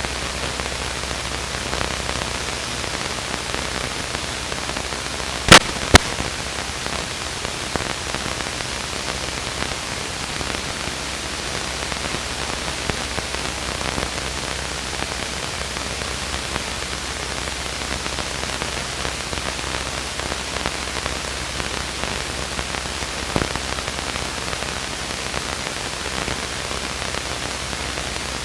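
Steady hiss of light rain on a Luscombe light aircraft in flight, heard from inside the cockpit. Two sharp clicks come a split second apart about five and a half seconds in, and a fainter click comes near the end.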